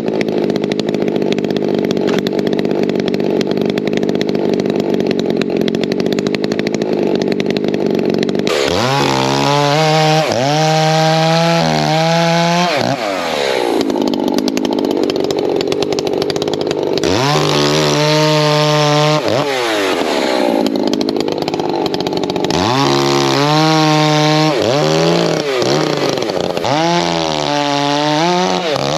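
Echo two-stroke chainsaw cutting oak: a steady cut for about the first eight seconds, then the engine revving up and dropping back several times.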